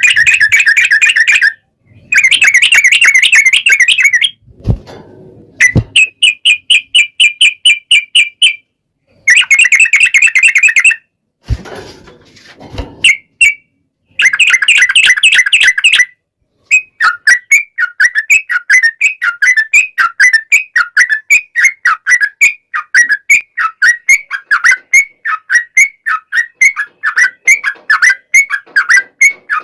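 Yellow-vented bulbul (trucukan) calling in loud bursts of fast chattering notes, each about two seconds long with short gaps between. After about 17 seconds the calls become one long unbroken run of quick repeated chirps: the long trill used as a lure to make other trucukan answer.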